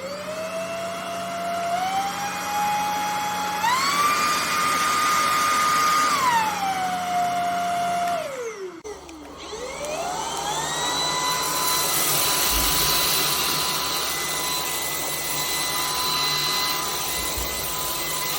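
Cordless stick vacuum's motor whining as it spins up, then stepping up in pitch twice and dropping back down, as its speed changes. About eight seconds in it winds down and stops, then starts again, spins up and runs steady.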